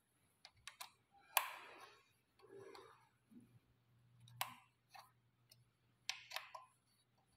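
Scattered light clicks and knocks, about a dozen at irregular intervals, with two short rustles early on, from hands working on a bicycle's brake.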